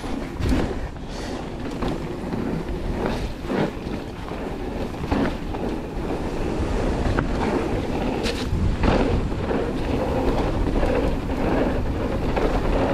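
Enduro mountain bike riding fast down a dirt trail: steady wind rushing over the microphone with the tyres rolling on the dirt, and sharp knocks and rattles from the bike now and then over bumps.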